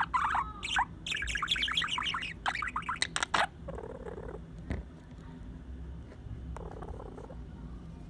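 Pet budgerigar chirping and warbling close up: a rapid chattering run of high chirps that stops about three and a half seconds in.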